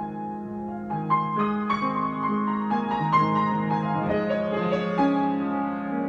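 Solo grand piano playing an improvisation. Held chords give way about a second in to a livelier passage of struck treble notes over sustained bass, which settles back into held chords near the end.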